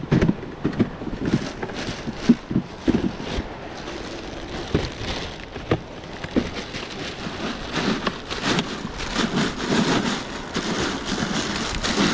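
Plastic bags crinkling and rustling close up as they are handled over bagged ice in a cooler, a dense, irregular crackle with many small sharp clicks.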